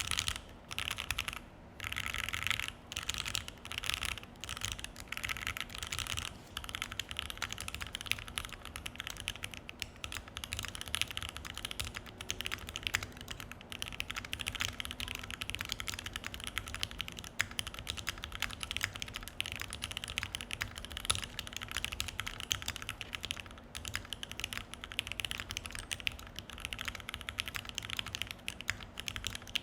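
Typing on a Keychron Q1 mechanical keyboard with an FR4 plate, OP Black switches and ePBT PBT keycaps. Short runs of keystrokes with pauses between them for the first several seconds, then continuous fast typing.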